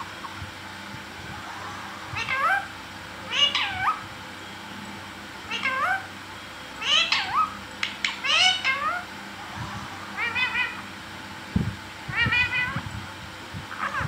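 Rose-ringed (Indian ringneck) parakeet giving a series of about seven short calls, each gliding up and down in pitch, a second or two apart.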